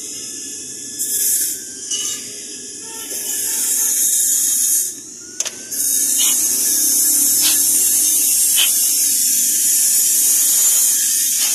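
Loud steady hiss with a lower rumble underneath. It swells about three seconds in, cuts out briefly about five seconds in, then resumes. A few faint clicks come about a second apart.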